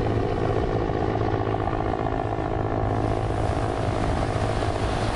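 Aircraft engine droning steadily, a constant low hum under a haze of noise.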